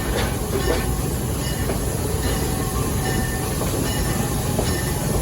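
Park train running along its track, heard from a passenger car: a steady rumble of wheels on rails with a few clicks and a faint wheel squeal.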